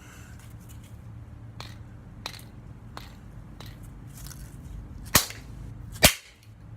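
A plastic highlighter barrel being cut and cracked open: a few light clicks, then two loud, sharp cracks about a second apart near the end.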